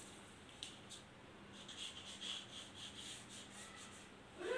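Glue stick rubbed along the edge of a flat piece of cardboard: faint, scratchy rubbing in a series of short strokes.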